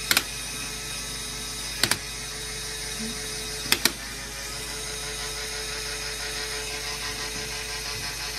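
Motor-driven Lego Technic differential gearbox running with a steady whirring hum of meshing plastic gears. Three sharp double clicks come about two seconds apart in the first four seconds.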